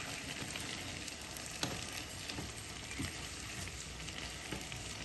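Boiled black chickpeas sizzling as they fry in oil and spices in a pan, with a few light clicks along the way.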